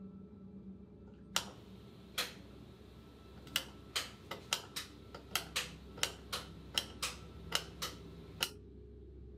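Wall light switch flicked on and off over and over: two single clicks, then a fast, uneven run of clicks lasting about five seconds.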